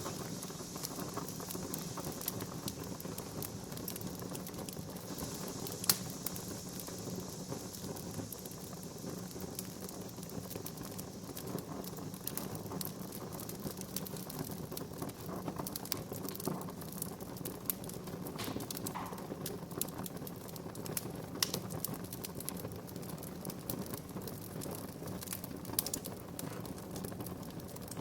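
Wood fire in a fireplace crackling, with irregular pops and a sharper pop about six seconds in, over a steady low rush of flames. A faint high hiss fades out after about ten seconds.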